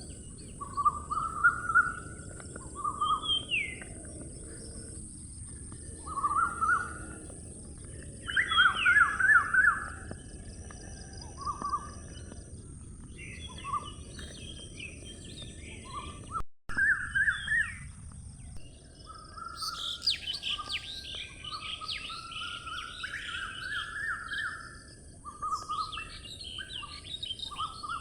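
Birds chirping and singing in short repeated phrases over a steady high hiss, with a brief cut-out a little past halfway.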